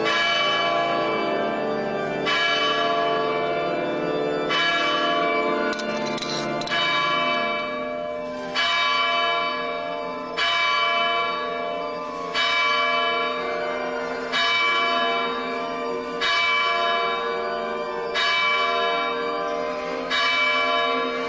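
Church bell tolling slowly, about one stroke every two seconds, each stroke ringing on and fading before the next.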